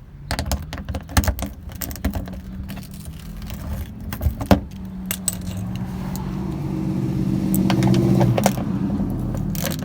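Metallic clicking and clinking of a wrench or ratchet on 8 mm bolts as they are loosened and removed, with a steady low hum building up in the second half.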